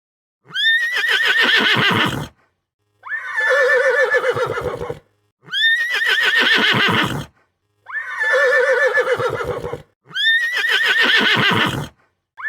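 Horse neighing five times in a row. Each whinny lasts about two seconds and has a quavering pitch, with short silent gaps between them.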